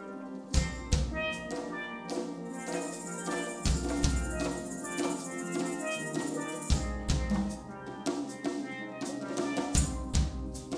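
A steel orchestra playing a reggae tune: many steel pans ring out melody and chords over a drum kit. Deep bass-drum beats fall in pairs about every three seconds, with a cymbal wash from about two and a half to five seconds in.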